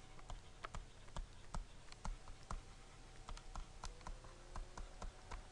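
A pen stylus clicking and tapping on a tablet computer's screen while handwriting: faint, irregular light clicks, a few a second.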